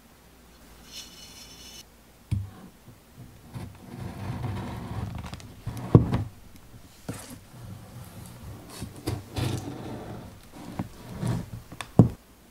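A knife cutting into a chocolate ganache tart with a shortcrust pastry shell: irregular rubbing and scraping with knocks. Two sharp knocks stand out, about six seconds in and again near the end.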